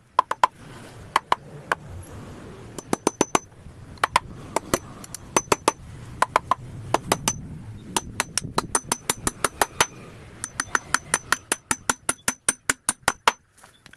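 Hammer tapping small pieces of a miniature wooden frame, many quick light strikes in runs of several a second with short pauses, some with a faint metallic ring.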